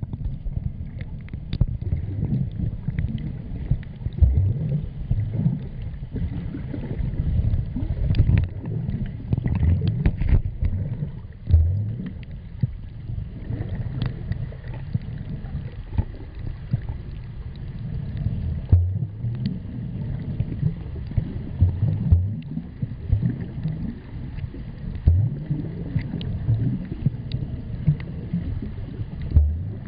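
Muffled underwater rumble of water moving around a camera held below the surface, swelling and easing irregularly every second or so, with a few faint clicks.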